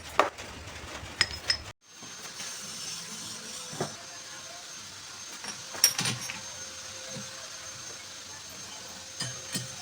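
Metal parts clinking and knocking as they are handled on a workbench: a handful of separate light strikes over a faint steady hum.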